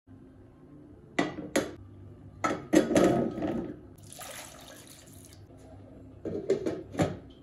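Glass pot lid knocking and clinking against the rim of a cookware pot as it is handled and set on, several sharp knocks with a hiss of about a second in the middle.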